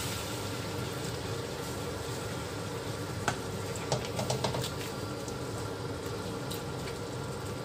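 Spatula stirring chicken and mushrooms in a wok, clicking and scraping against the pan a few times from about three to four and a half seconds in, over a steady low hiss from the pan.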